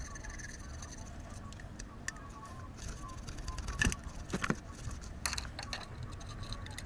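Hand scraper working on the exhaust-manifold mounting face of a cylinder head, cleaning off old gasket residue: short scraping strokes with scattered sharp metallic clicks and taps, the sharpest about four seconds in.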